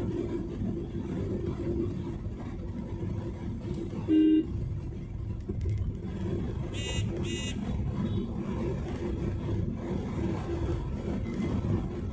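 Steady road and engine noise heard inside a moving car's cabin. About four seconds in a vehicle horn gives one short loud blast, and about three seconds later come two quick high-pitched beeps.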